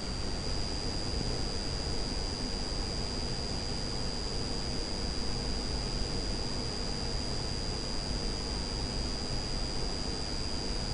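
Steady background hiss of the recording with a constant high-pitched whine and a faint low hum; no other sound.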